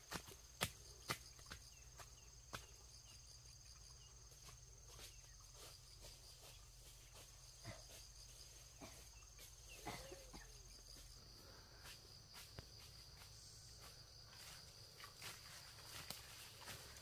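Faint outdoor ambience: a steady high insect drone, likely crickets, with scattered light clicks and knocks.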